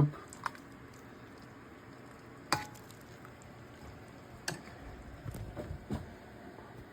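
A ladle knocking and clinking a few times against a soup pot and bowl while soup is served, the loudest knock about two and a half seconds in, a cluster of lighter clinks near the end, over a faint hiss.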